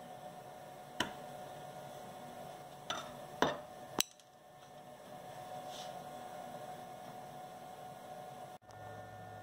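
A sharp chisel cutting through the small holding tabs of a CNC-cut wooden disc: four sharp clicks, one about a second in and three close together about three to four seconds in, as the tabs snap. A steady hum runs underneath.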